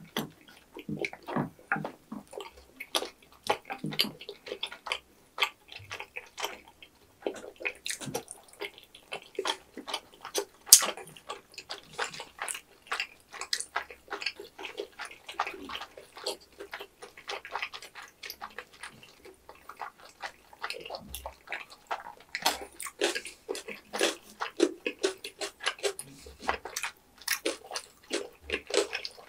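Wet, sticky chewing and mouth sounds of people eating tteokbokki in thick red sauce: a dense, irregular run of small smacks and clicks, with one sharper click about eleven seconds in.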